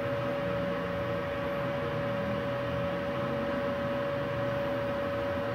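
Multipro MIG-MAG 200G-SP inverter MIG welder switched on and idling, not welding: a steady fan-like hum with one constant high whine.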